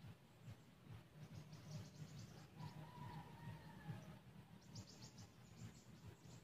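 Near silence: faint outdoor ambience with a low rumble and scattered faint high chirping, and one faint whistled call about three seconds in.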